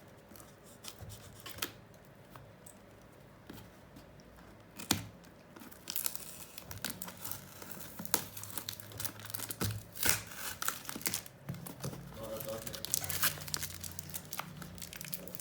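Packaging being torn open and crumpled by hand: irregular ripping and crinkling, sparse at first and busier from about six seconds in.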